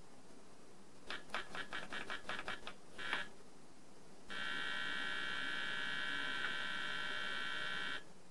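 Key-click beeps from the built-in speaker of a Hitachi Basic Master Level 3 Mark 5: a quick run of about ten short clicks, a slightly longer one, then a steady tone held for three to four seconds that cuts off sharply. The click sound is low, with the CPU slowed to 1/16 speed while the DMA signal is on.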